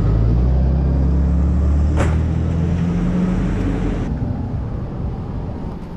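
FedEx Express step-van delivery truck driving past: a deep engine rumble whose pitch rises as it accelerates, then fades after about three seconds. A single sharp click about two seconds in.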